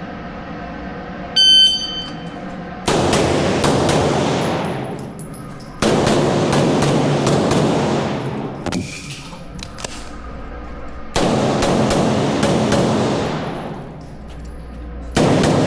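Shot-timer start beep, then a 2011 pistol, a Taran Tactical JW4 Pit Viper, fired in rapid strings of shots. There are four strings about 3 to 4 seconds apart, echoing in an indoor range.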